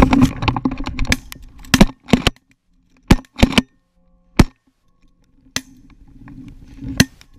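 Shotgun volley at flaring Canada geese: about eight sharp reports at uneven intervals, several of them very loud, with near-silent gaps between. Straw rustles against the gun-mounted camera in the first second.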